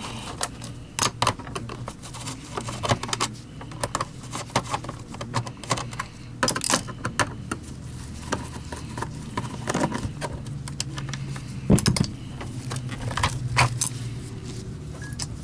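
Screwdriver and screws working on the plastic housing of a vacuum power brush as it is taken apart, a string of irregular sharp clicks and clatters, with a louder knock about twelve seconds in.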